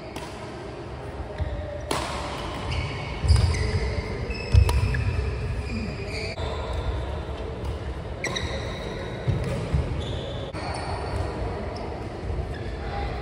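Badminton rally: racket strikes on the shuttlecock a second or two apart, with thuds of footwork and short squeaks of court shoes on the synthetic court mat.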